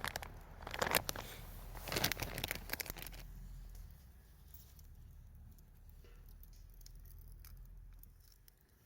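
Rustling and sharp clicks of something being handled for about three seconds, then only faint scattered ticks.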